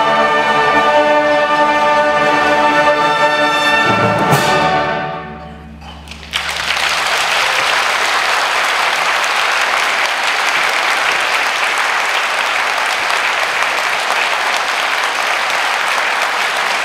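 An orchestra holds its final chord and cuts it off with a sharp accent about four seconds in, leaving a short fading ring in the hall. The audience then bursts into steady applause about six seconds in.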